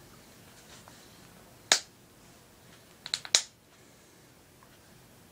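Sharp clicks from handling a 5th-generation iPod Touch in its new case: one click, then a quick run of three or four about a second and a half later.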